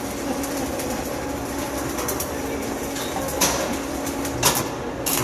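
Electric arc welding: the arc crackles and sizzles steadily while a bead is run, with a few sharper pops in the second half.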